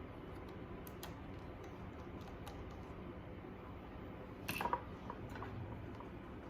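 A few faint clicks, then a short, louder clatter with a slight metallic ring about four and a half seconds in, as of small parts or a tool being handled on a laptop.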